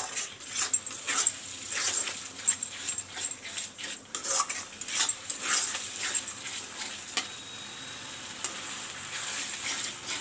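Spatula stirring and scraping a thick onion-tomato masala frying in oil in a kadai: rapid, irregular scrapes and knocks for the first six seconds or so, then mostly a steady sizzle. The masala is being fried until the oil separates from it.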